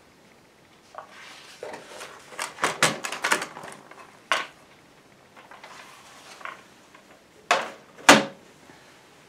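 Handling noise from a paper cone and plastic toy phonograph parts: rustling and light clicks, a sharp click about four seconds in, then two loud knocks near the end as parts are set down on the table.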